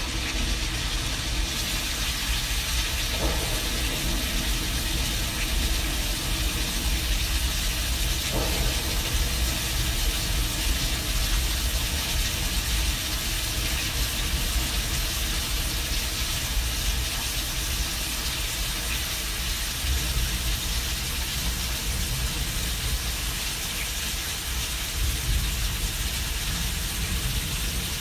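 Simulated thunderstorm: a steady rain-like hiss over a continuous low rumble, with no distinct thunderclaps.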